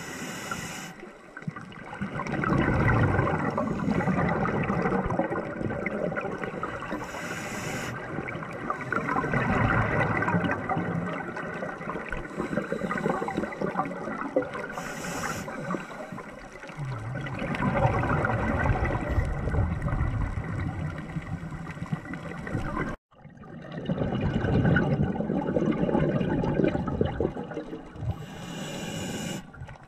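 Scuba diver breathing through a regulator underwater: a short hiss on each inhale, then a gurgling rush of exhaled bubbles lasting a few seconds, repeating about every seven to eight seconds. The sound drops out for an instant about two-thirds of the way through.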